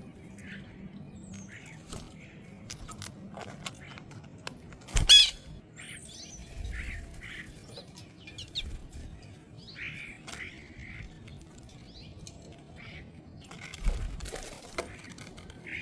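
Small birds at a feeder: scattered short chirps and calls, with sharp clicks and taps and a few low thumps. One louder call comes about five seconds in.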